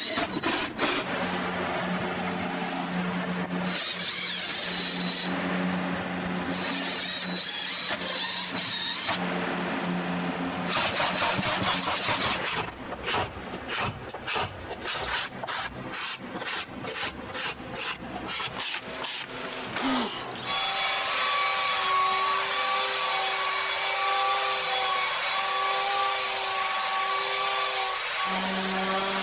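A sequence of woodworking sounds on a wooden block top. First a power tool runs in several short stretches. Then a hand scraper scrapes dried glue off the wood in quick, uneven strokes. From about two-thirds of the way in, a Skil belt sander runs steadily, and near the end a DeWalt random orbit sander takes over with a different, steady hum.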